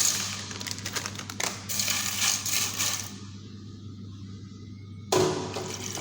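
Kitchen handling sounds, rustling with light clicks and clatter. About five seconds in, a sudden rush starts and carries on steadily, which is running tap water, all over a steady low hum.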